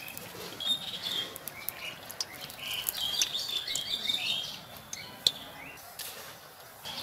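Small birds chirping repeatedly over the steady sizzle of a malpua deep-frying in hot oil in a wok, with scattered sharp crackles and pops from the oil, one louder pop about five seconds in.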